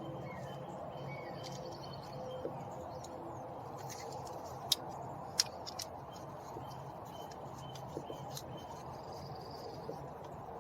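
Scattered sharp clicks of a screwdriver and plastic window-switch parts being handled, the two loudest about halfway through, over a steady low hum. Faint bird chirps in the background.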